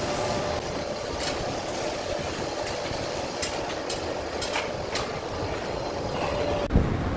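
Steady drone of a large ventilation exhaust fan with a faint steady hum, with a few light clicks scattered through it and a thump near the end.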